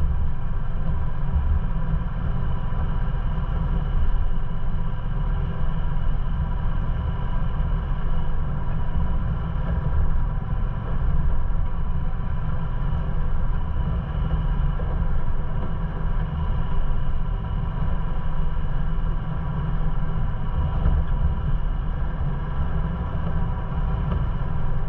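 Ford Bronco driving slowly over a sandy off-road trail: a steady, heavy low rumble of engine and drivetrain that rises and falls slightly.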